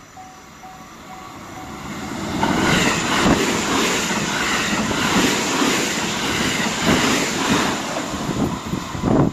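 Japanese level-crossing warning bell ringing in a steady beat, then an electric train on the JR Kobe Line passes close by at speed. The train's rush swells from about two seconds in and stays loud, with a rough wheel rhythm, drowning out the bell.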